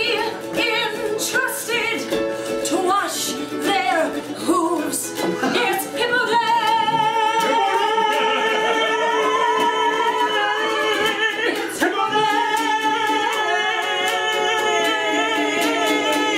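A man singing to ukulele accompaniment. About six seconds in he takes up one long, wavering held note that carries on to the end.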